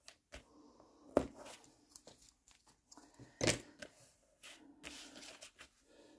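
Tear-off adhesive tape being pulled from its roll and torn onto a card-stock glue flap, and the paper pressed and smoothed by hand. The sounds are soft crackling and rustling, with two sharper snaps about a second in and about three and a half seconds in.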